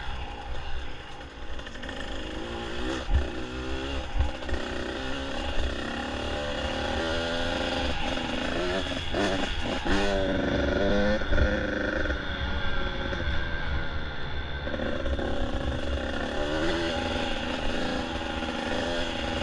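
Dirt bike engine running under load, its pitch rising and falling again and again as the rider accelerates and eases off along the trail.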